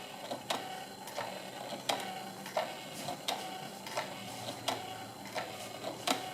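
Homemade 12-volt mini washing machine with a soup-can drum running, its small motor humming faintly under a regular click about every 0.7 seconds.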